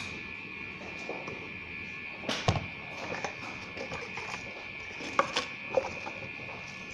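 Unboxing handling sounds: a coiled USB cable set down with a knock about two and a half seconds in, then a few light clicks and knocks from the cardboard box insert being handled. A steady high-pitched tone runs underneath.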